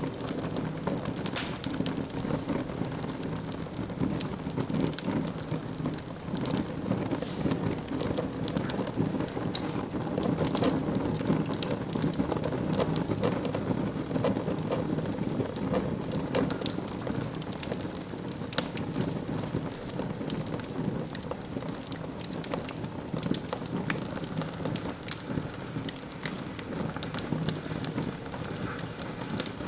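Wood fire burning in a fireplace: a steady hiss and rumble with frequent small crackles and pops all the way through.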